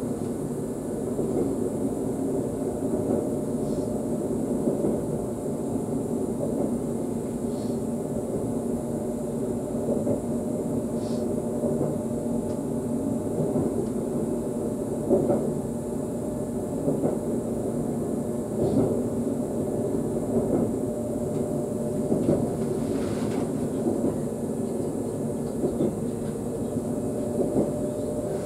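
Running noise of an ES2G Lastochka electric multiple unit heard from inside its driving cab while it moves. A steady rumble from the wheels on the rails, with occasional light knocks.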